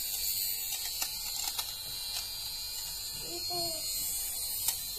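Xiaomi Mijia fuzz trimmer's small motor running with a steady high whine as it is moved over fabric, shaving off pilled fibres, with a few short ticks.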